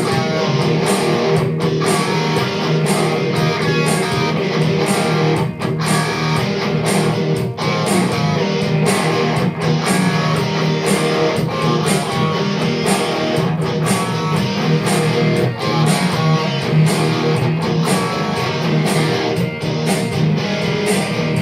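Guitar music: a guitar being strummed and plucked with a steady beat throughout.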